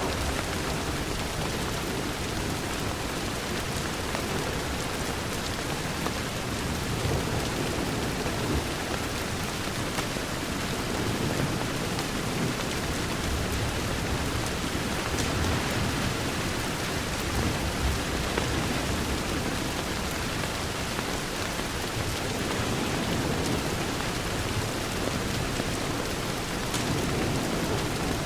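Steady rain falling against a window: a dense, even hiss with a heavier low rumble underneath.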